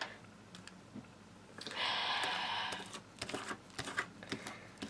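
A folded paper leaflet being handled on a table: a brief rustle about two seconds in, followed by a scatter of light clicks and taps.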